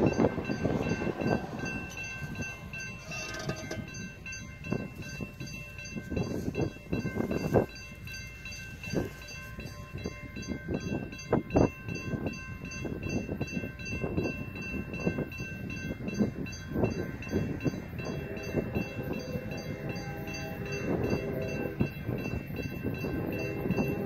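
Railroad crossing warning bell ringing steadily in a regular repeating ding, with a few sharp knocks. From about three-quarters of the way in, a distant locomotive horn sounds in repeated blasts as the Union Pacific train approaches the crossing.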